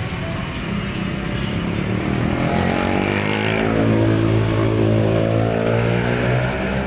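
A road vehicle's engine going past, swelling to its loudest about four seconds in and fading near the end, over the steady sizzle of potato sticks deep-frying in a wire basket of hot oil.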